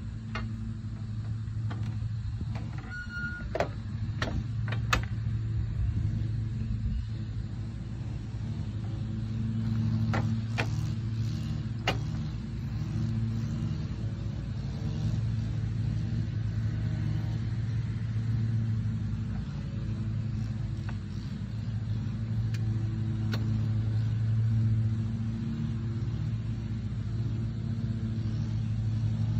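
An engine running steadily at idle: a low, even hum that slowly swells and eases. A few sharp clicks cut in over it about three to five seconds in and again around ten to twelve seconds in.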